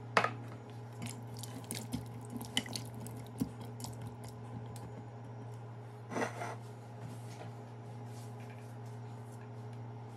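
A utensil stirring a liquid vegetable stew in a stainless steel Instant Pot inner pot: wet stirring with scattered clinks and scrapes against the metal, the loudest right at the start and again about six seconds in. A steady low hum runs underneath.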